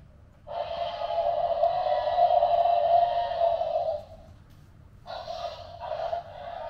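Tyrannosaurus roar sound effect, thin and hoarse: one long roar lasting about three and a half seconds, then a second starting about five seconds in.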